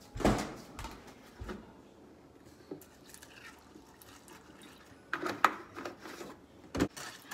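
Kitchen handling sounds: a plastic milk jug set down on the counter with a knock, then scattered light knocks and clicks of the jug, its screw cap and a cereal bowl being handled, with a quick cluster of clicks about five seconds in.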